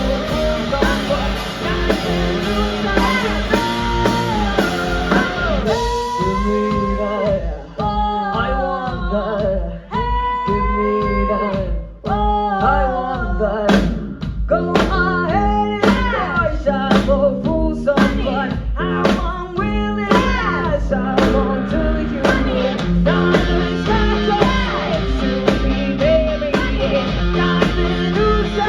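Rock band playing live: electric guitar, bass and drum kit with a female lead vocal. The singing stands out most between about six and fourteen seconds in.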